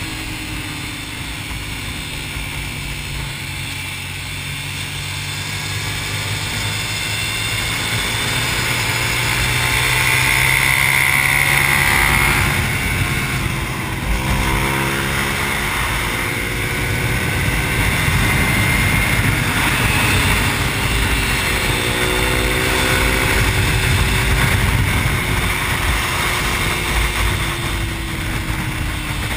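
Suzuki SV650's V-twin engine under way at track speed, heard from the rider's seat under a steady rush of wind. The engine grows louder over the first dozen seconds, then its note rises and falls with the throttle twice in the second half.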